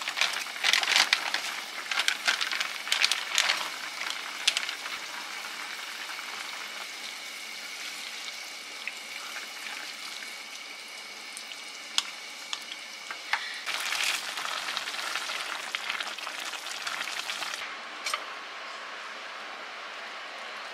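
Braised chicken in sauce sizzling in a frying pan as vegetables are tipped in and stirred with a wooden spoon. Clusters of knocks and scrapes of the spoon against the pan come in the first few seconds and again about fourteen seconds in.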